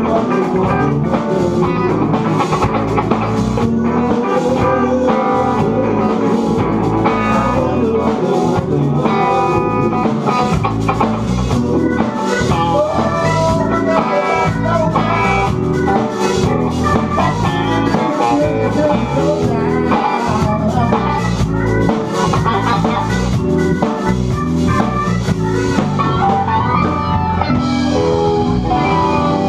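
Live blues-rock band playing: electric guitars, bass guitar and drum kit. About three seconds before the end the drumming falls away while the guitars keep on.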